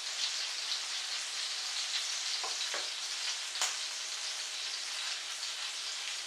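Sausages sizzling in a frying pan, a steady frying hiss, with a few light utensil clicks about halfway through.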